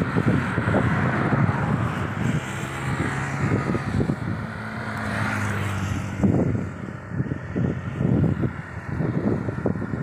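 Road traffic passing: a car's tyres and engine swell past in the first few seconds, followed by a steady engine hum. Wind buffets the microphone in gusts, strongest in the second half.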